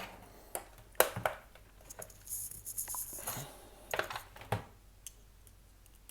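Prying tool working on the plastic snap-fit housing of a wireless access point: a handful of sharp plastic clicks and knocks, the loudest about a second in and two more near four seconds in, with a short scraping in the middle.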